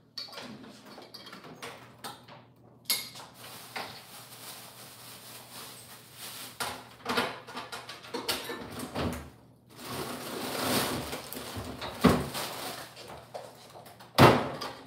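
Rummaging in a French-door refrigerator: the door opening, items shifting and being moved about, with rustling and scattered knocks. The two loudest knocks come in the last few seconds.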